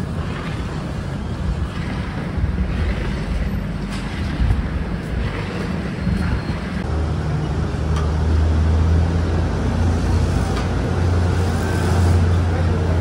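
Steady low rumbling hum, growing louder and more droning from about seven seconds in, over a constant hiss of background noise.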